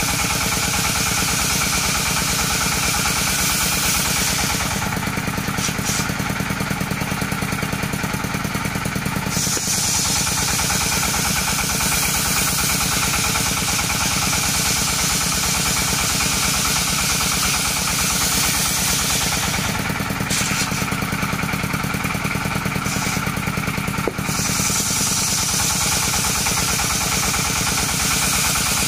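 Engine-driven circular saw running steadily while coconut-palm wood is sawn lengthwise. Twice, for about four seconds each, the high hiss drops away and then returns.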